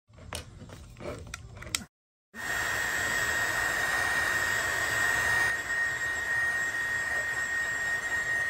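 A few light clicks and scrapes of a plastic spudger prying at the phone's edge, then, after a short break, a handheld heat gun blowing steadily with a high, even whine as it heats the cracked screen to soften the adhesive.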